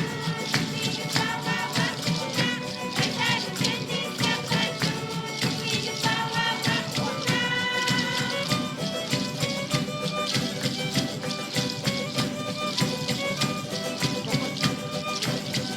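Live band playing Andean folk-style church music: a melody over a steady, busy rhythm.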